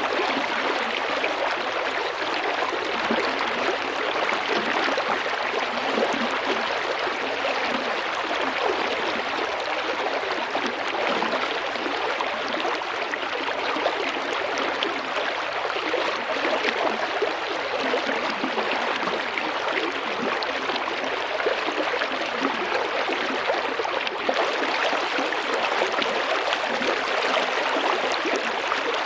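Small river flowing and babbling over stones, a steady, unbroken water sound with fine splashing detail.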